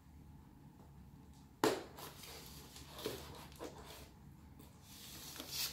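A kitchen knife cutting along the sealed edge of a shipping box: a sharp click about a second and a half in, then a run of short scraping rasps as the blade works along the seam.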